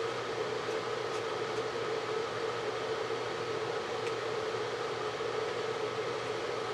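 Steady background hum and hiss of room noise, unchanging throughout, with one faint click about four seconds in.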